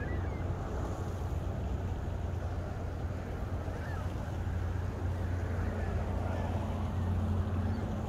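Steady wind rumble on the microphone by an icy lake, with a few faint calls from distant birds on the ice.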